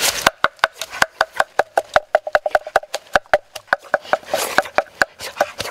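Wooden pestle pounding in a mortar: quick, regular knocks, about five a second, each with a short ringing note.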